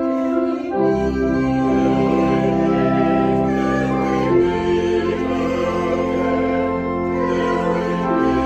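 Instrumental organ music playing long held chords, the harmony changing every few seconds.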